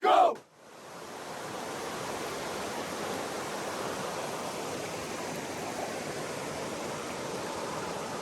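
Small mountain stream flowing with a steady rushing noise, fading in over the first second or so. At the very start a brief, loud sound whose pitch falls.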